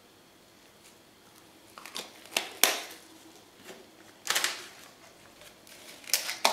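Small plastic paint cups and bottles handled and set down on the work table: three short bursts of clicks and clatters, about two, four and six seconds in.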